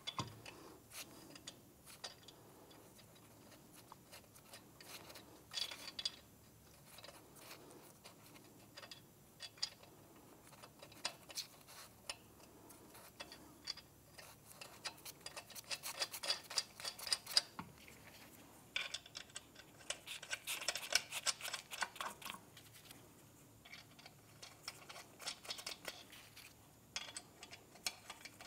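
Lug nuts being spun onto wheel studs by hand: faint, irregular metallic clicking and ticking as the nuts turn on the threads and clink together in the hand, busiest in a few stretches past the middle.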